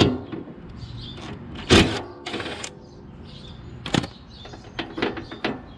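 Cordless impact driver hammering in short bursts about two seconds in, loosening the bolt of a lawn tractor's belt idler pulley. Clicks and knocks of metal parts being handled follow, near four and five seconds in.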